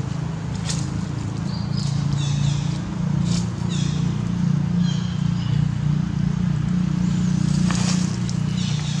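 A steady low hum throughout, with short high-pitched descending chirps recurring roughly once a second and a few brief clicks or rustles.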